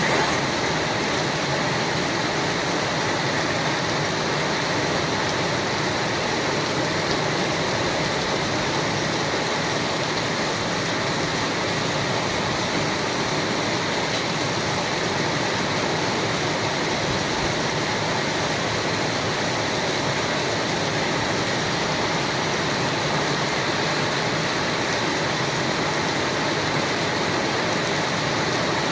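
Steady rain falling on a terrace, an even, unbroken hiss of water.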